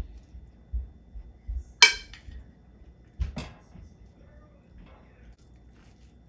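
Kitchen utensil knocking against cookware while food is spooned in: a few soft knocks, then a sharp ringing clink about two seconds in and another knock and clink a second and a half later.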